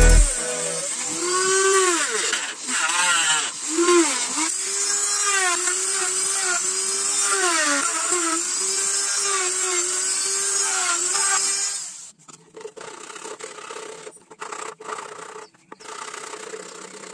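Handheld mini rotary grinder with a small cutting disc cutting through a white plastic sheet: a high motor whine that dips and recovers in pitch as the disc bites, stopping about twelve seconds in. After that, quieter rough scraping strokes of a sanding block rubbing the cut edge.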